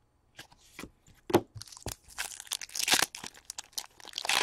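Foil wrapper of a hockey card pack crinkling and tearing as it is opened by hand: a few separate snaps at first, then denser crinkling in the second half.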